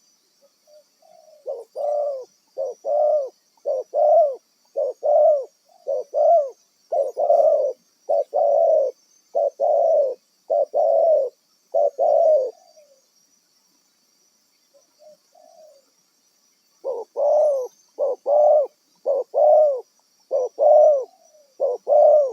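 Spotted dove (tekukur) cooing: a run of about a dozen short, evenly spaced coos, a pause of a few seconds, then another run of coos near the end.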